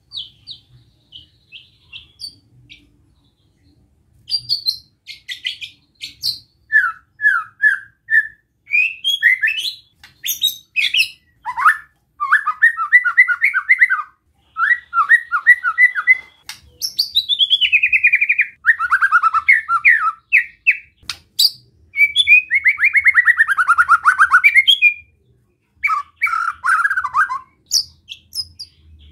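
White-rumped shama singing a relaxed besetan: a varied run of short whistles, quick trills and harsh rasping phrases that slide downward, the song kept to provoke other shamas into singing. After a few sparse notes, the song runs almost without a break from about four seconds in.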